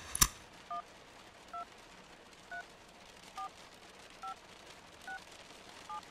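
Phone keypad tones: a number being dialled on a mobile phone, seven short two-tone beeps a little under a second apart. A sharp click comes just before the first beep.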